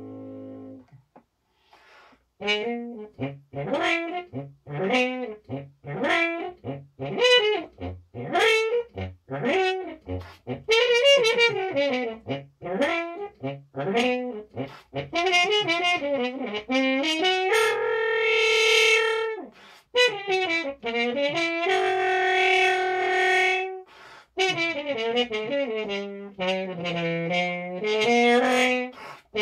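Stopped French horn (played with a stop mute) playing a bluesy solo line: short notes, many bending or sliding in pitch, starting about two seconds in after a brief pause, with two longer held notes in the second half.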